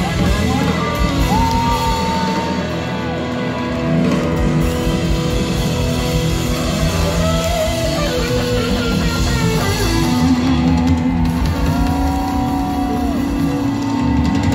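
Live rock band playing an instrumental passage: an electric guitar lead with sliding, bending notes over bass, keyboards and drums.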